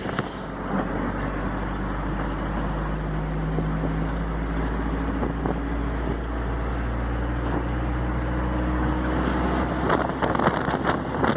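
A vehicle engine running steadily, its low hum stepping in pitch now and then, over a steady rushing noise. A few sharp clicks come in near the end.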